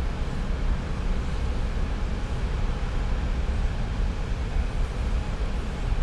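Close-up oil refinery ambience: a steady, even industrial rumble and hiss, deep at the bottom with faint steady hum tones above.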